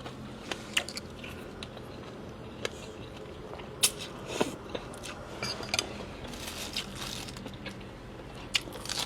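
Close-up eating of pork noodle soup: chewing and mouth noises with scattered sharp clicks, the loudest about four seconds in.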